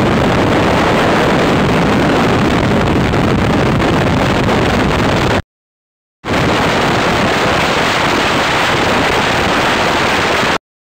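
Loud, steady drone of a B-17G's four Wright R-1820 Cyclone radial engines mixed with the rush of the slipstream, heard from inside the bomber in flight. It cuts out briefly about five and a half seconds in and again just before the end.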